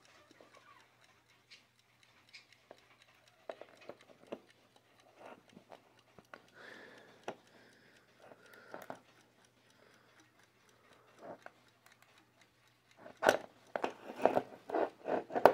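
Sabre mechanical wind-up alarm clock ticking faintly, with scattered clicks as its brass case and back keys are handled. Near the end comes a run of louder knocks as the clock is turned over on the wooden floor.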